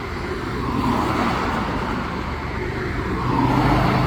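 Motor vehicle noise: tyre and road noise swelling and fading as traffic passes. A steady engine hum grows louder near the end.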